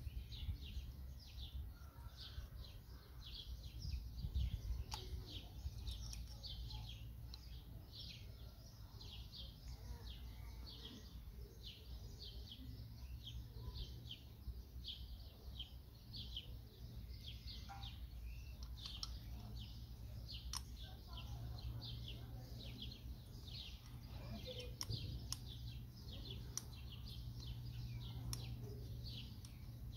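Small birds chirping, several short high falling chirps a second, over a steady low rumble, with a few faint clicks.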